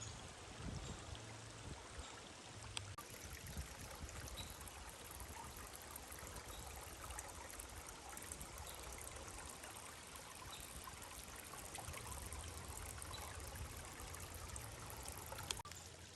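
River water flowing with a steady rushing, with no breaks.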